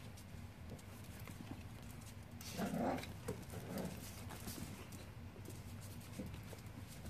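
Icelandic Sheepdogs and their puppies at play: one short, louder sound about two and a half seconds in, followed by two brief softer ones.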